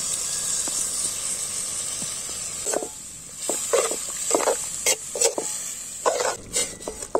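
Water poured into a hot iron kadai of fried onions and tomatoes sizzles and hisses steadily. From about three seconds in, a perforated metal ladle stirs and scrapes the mixture against the pan in short, irregular strokes.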